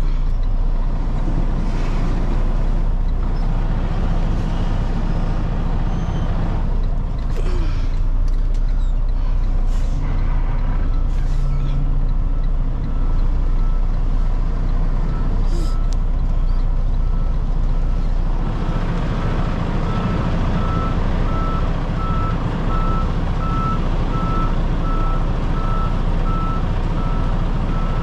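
Semi-truck diesel engine running under the cab while the rig is backed up; from about eleven seconds in, a reverse alarm beeps steadily at an even pace. The engine picks up about two-thirds of the way through.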